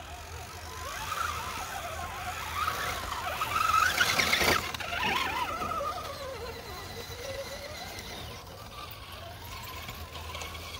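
Electric motors of RC rock crawlers whining, the pitch rising and falling with the throttle as the trucks climb the muddy slope. There is a brief sharp knock about four and a half seconds in, near the loudest point.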